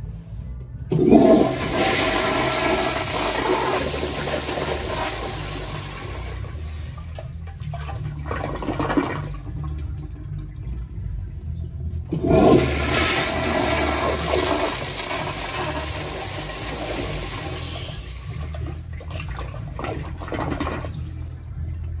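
American Standard wall-hung toilet flushed twice by its flushometer valve: each flush opens with a sudden rush of water, about a second in and again about twelve seconds in, then runs on for about eight seconds before stopping.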